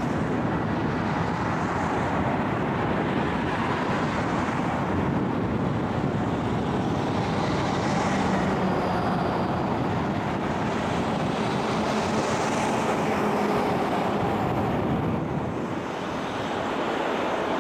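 Boeing 737 jet engines running with a steady roar as the airliner rolls out on the runway just after touchdown.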